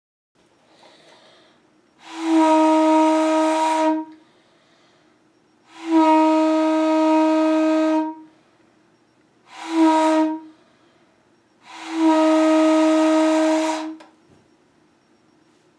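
Homemade train horn blown in four blasts, long, long, short, long: the grade-crossing signal. Each blast is a single steady, breathy note.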